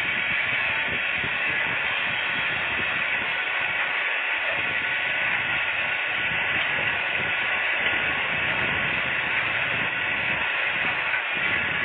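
Steady rushing hiss of wind on the microphone, with uneven low buffeting.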